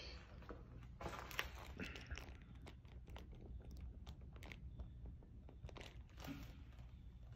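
Faint, scattered clicks and rustles over a steady low hum.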